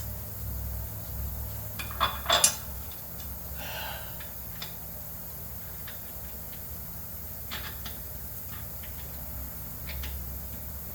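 Hand tools and small metal parts clinking and tapping during work on a mower deck: a few sharp clinks about two seconds in, then scattered lighter ticks, over a low steady hum.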